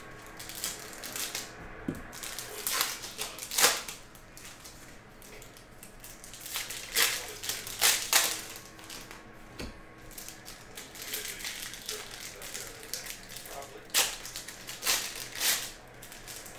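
Foil trading-card packs being handled and ripped open, with crinkling and crackling of the wrappers in irregular clusters of sharp noises.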